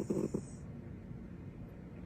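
Sleeping cat snoring: a snore broken into a few quick pulses ends within the first half second, followed by faint low breathing noise.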